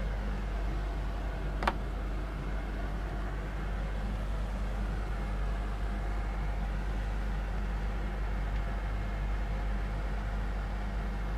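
Steady background hum and hiss of room noise, with one short click a little under two seconds in.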